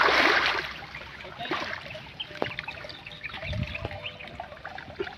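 A splash as a wet nylon fishing net is hauled out of the pond, then water trickling and dripping off the mesh with small rustles, and a dull thump about three and a half seconds in.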